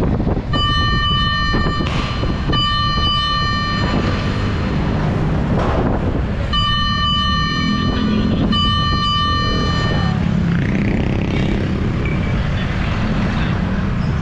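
A vehicle horn sounds four long, steady blasts in two pairs, over the steady running of a truck engine.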